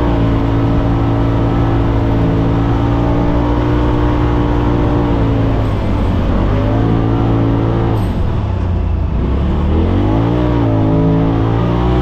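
Polaris RZR side-by-side engine running under load while driving across sand. The revs ease off and pick back up about halfway through, then drop more deeply and climb again near the end.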